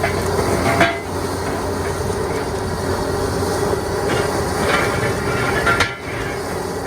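Backhoe at work: the hydraulic excavator's diesel engine running steadily under load, with metal screeching and two sharp knocks, about a second in and near the end, as it crushes demolition debris.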